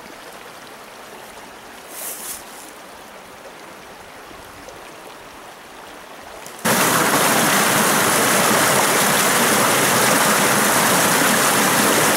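Mountain stream flowing: a soft, steady rush of water that jumps suddenly to a loud, close rush of water tumbling over a small rocky cascade about two-thirds of the way through.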